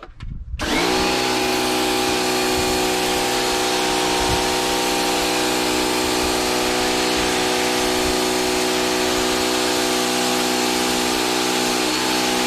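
Bosch Aquatak 110 electric pressure washer starting about half a second in as the trigger is pulled: its motor and pump quickly rise to a steady hum under the hiss of the high-pressure water jet hitting paving tiles.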